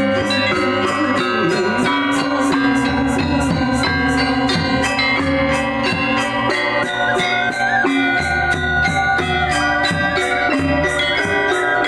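Balinese gamelan gong ensemble playing: bronze metallophones and gongs ring in dense interlocking melody over a steady beat of bright, short cymbal-like clashes, about three to four a second.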